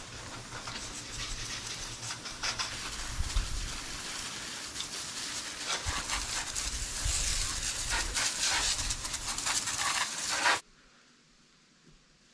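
A garden hose spray nozzle rinsing soap off a motorcycle. The water spatters onto the bike and the wet concrete as a steady spray with many small spatters through it. It stops suddenly about ten seconds in, leaving near silence.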